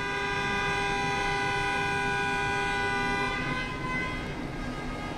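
A horn sounds one long steady note for about three and a half seconds, then fades away, heard over the low rumble of the ferry's car deck.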